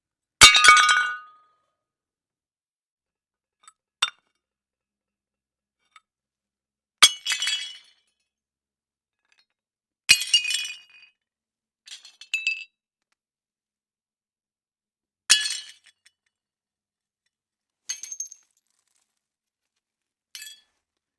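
A string of about eight separate glass-breaking sound effects, spaced every two to three seconds. Each is a sharp crash followed by a brief tinkle of falling shards. The first is the loudest, and the last two are much fainter.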